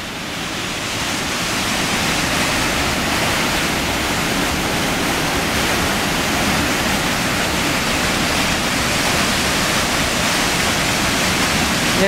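Mountain river white water pouring over and between boulders in small cascades: a steady, even rush, swelling slightly in the first second or two.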